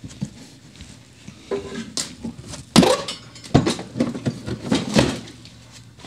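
Plastic truck HVAC blower housing being handled and set down: a string of knocks and clatters, the loudest about three seconds in.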